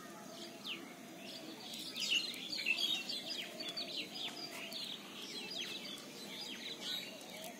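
Small birds chirping, a busy run of short, quickly falling high notes that is thickest about two to four seconds in.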